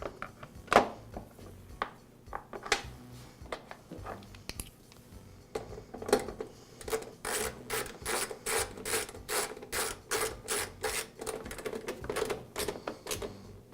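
Hand tool clicking as the mower's belt cover is fastened back on: a few scattered knocks and clicks, then from about six seconds a quick, even run of clicks, about three a second, as its fasteners are tightened.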